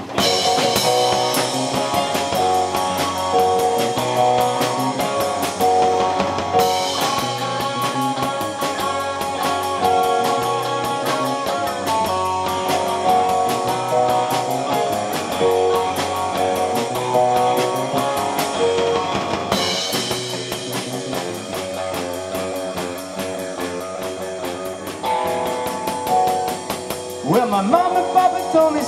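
Live rock band playing an instrumental passage with no singing: drum kit keeping a steady beat under guitars, bass and keyboards.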